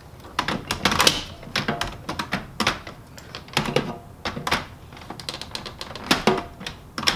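Plastic toner bottles being handled and pushed into the toner slots of a Kyocera 6030 colour laser printer: a run of irregular plastic clicks and knocks.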